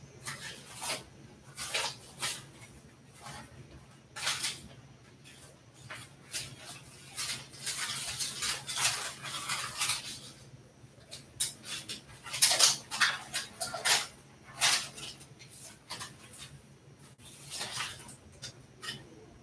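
Things being handled and sorted on a tabletop: irregular rustles, light knocks and clicks, with a longer stretch of rustling about seven seconds in.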